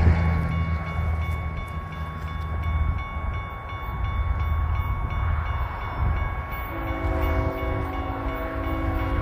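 Approaching BNSF freight train's diesel locomotives rumbling in the distance, then the lead locomotive's multi-note air horn sounding a long chord about two-thirds of the way in, held on past the end.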